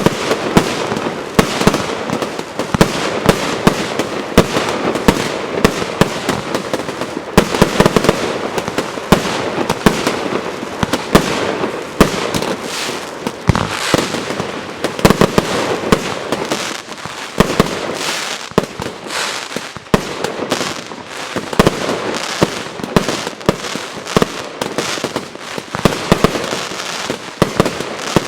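Consumer firework battery (cake) firing a rapid, continuous barrage of shots and aerial bursts.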